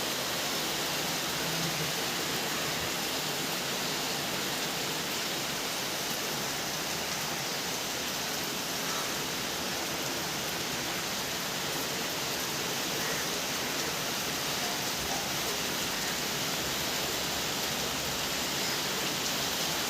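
Steady rainfall, an even hiss of rain with no single drops standing out.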